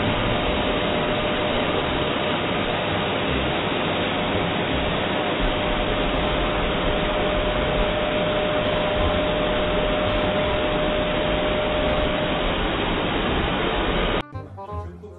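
Hair dryer blowing steadily at close range, a loud even rush of air with a faint steady whine, cutting off abruptly near the end.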